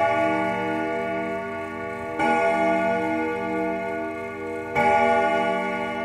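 A church bell tolling, struck about every two and a half seconds, twice here. Each stroke rings on with a long, pulsing hum until the next.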